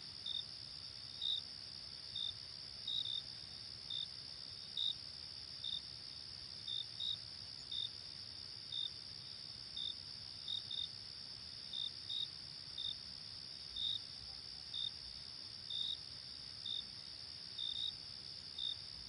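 Night insect chorus: a steady high-pitched cricket trill, with separate short cricket chirps on a slightly lower note about once a second, some coming in pairs.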